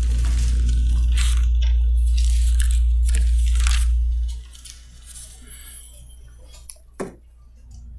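Thin Bible pages being leafed through and rustling, picked up close by a handheld microphone in several short rustles. A loud low hum sits under the first half and drops away about four and a half seconds in.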